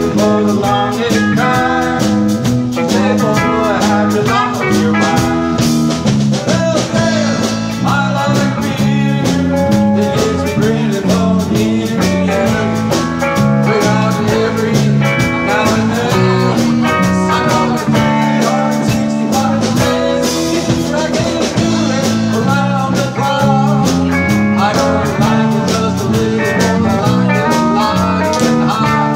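Live country band playing a song on electric and acoustic guitars, electric bass and drums, with a steady drum beat.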